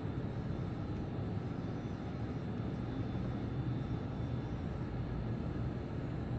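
Steady low rumbling background noise with no distinct events in it.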